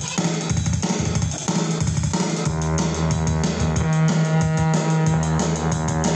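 Live rock band playing: a drum kit keeping a steady beat under guitar and sustained bass notes.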